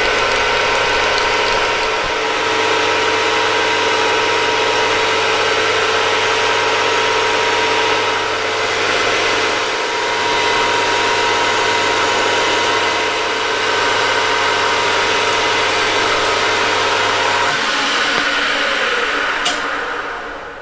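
Small metal lathe running at speed, a steady whine of several tones with a noisy edge, as a button insert cutter turns down a small tape-drive spindle. About 17 seconds in the motor is switched off, and the whine falls in pitch and fades as the chuck spins down.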